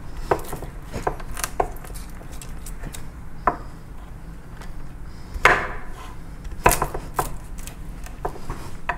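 Wooden rolling pin rolled and knocked on a wooden cutting board over cooked lobster legs to press out the meat: irregular knocks and clicks, the loudest about five and a half and six and a half seconds in.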